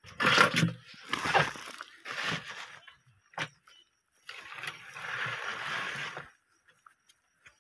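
Footsteps crunching and rustling through dry leaves and brush: three short steps about a second apart, a sharp snap a little past the middle, then a longer rustle of about two seconds.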